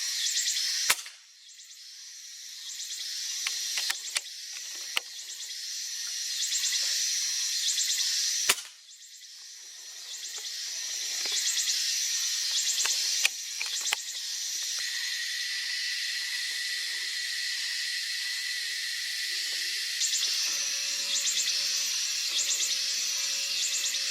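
Insects buzzing in a steady, pulsing, high-pitched chorus, broken twice by a sharp loud crack, about a second in and again about eight seconds in, with a few fainter clicks between.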